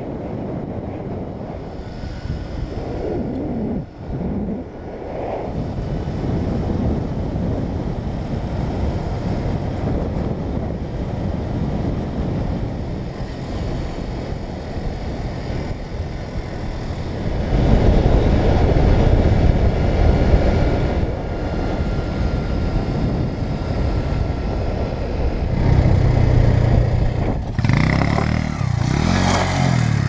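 Motorcycle running at road speed with a steady rush of wind and road noise over the mounted camera's microphone. It gets louder a little past halfway, and near the end the engine's low, uneven beat stands out.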